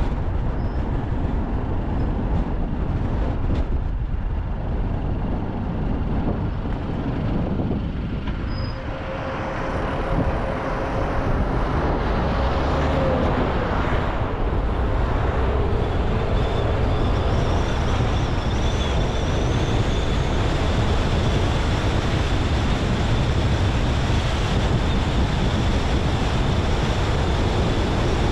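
Car driving along a road: steady tyre and road rumble mixed with engine noise, easing briefly about eight seconds in. A faint high steady whine joins about halfway through.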